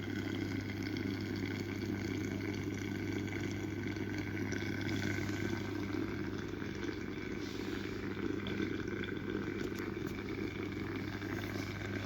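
Electric steam vaporizer with its water just starting to boil: a steady boiling sound with a low hum, unchanging throughout, as the water heats up toward making steam.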